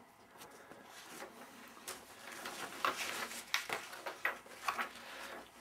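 Sheets of typed paper rustling as they are handled and leafed through, with irregular soft crinkles and flicks.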